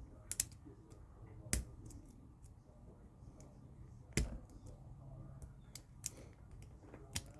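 A half-diamond lock pick working the pins of a lock under tension: faint metallic ticking with five or so sharper clicks scattered through it.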